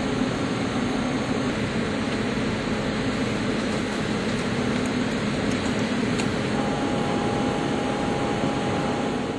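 Lathe grooving a 42CrMo4 steel workpiece with a Walter G1011 carbide grooving tool: steady machining noise with a low hum. A thin steady tone joins about two-thirds of the way through.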